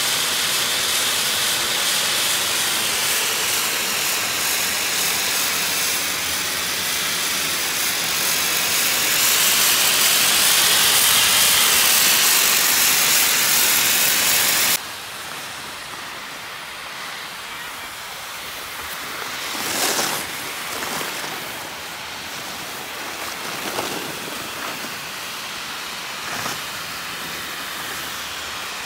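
Snowmaking gun hissing loudly and steadily. About halfway through it cuts off abruptly to a quieter hiss with a few short swishes of skis turning on snow.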